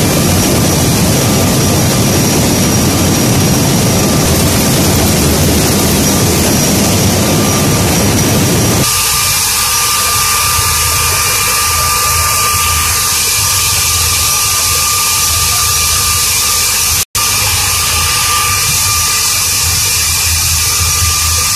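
Loud, steady din of flour mill machinery running, with a few steady whining tones over it. About nine seconds in, the deep rumble drops away abruptly and the higher whine comes forward. Near the end the sound cuts out completely for a split second.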